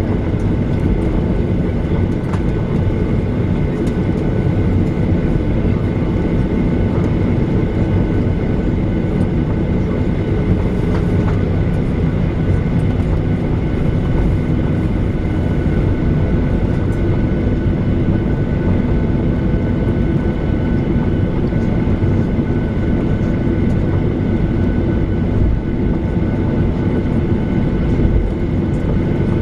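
Cabin noise inside a Boeing 737 taxiing: the jet engines' steady rumble with several thin, steady whining tones over it, holding an even level with no rise in thrust.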